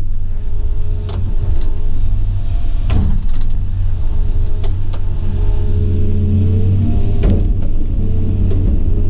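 Excavator's diesel engine running steadily under load, with a few sharp clunks from the machine's bucket and arm as it strips topsoil.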